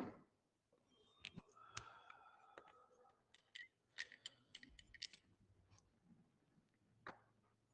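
Near silence: quiet room tone with faint scattered clicks and taps, most of them between about one and five seconds in.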